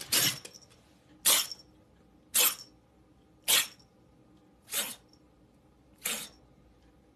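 Young tabby kitten making six short, sharp breathy bursts, about one every 1.2 seconds, the last two softer.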